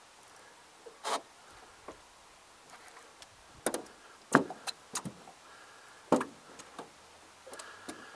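Irregular knocks and clunks against a small fishing boat's hull and gear while a hooked fish is being fought, the loudest about halfway through.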